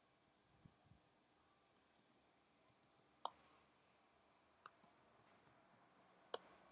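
A handful of short, sharp, scattered computer mouse and keyboard clicks over near silence, the loudest a little over three seconds in.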